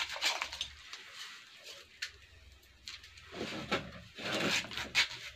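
Banana flower florets and bracts being cut and scraped off with a curved sickle blade over a metal pot: a run of quick crisp scraping strokes near the start, a quieter stretch, then more cutting in the second half.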